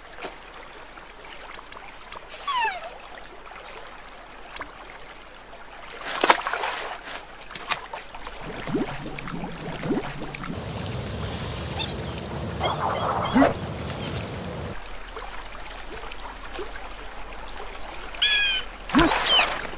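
Cartoon pond ambience: water trickling and splashing as the beavers swim, with scattered short bird chirps and a few sliding whistle-like effects.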